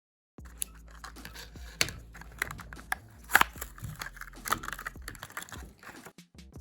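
A Hot Wheels blister pack being handled and opened by hand: irregular plastic-and-card clicks, taps and crinkles, with one sharper snap about three seconds in.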